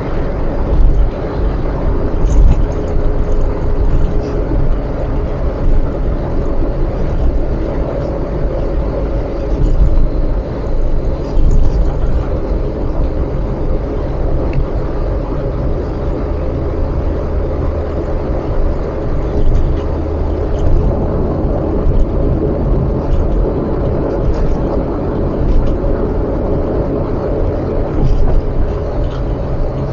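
A car on the move: a steady rumble of engine and road noise, heaviest in the deep low end.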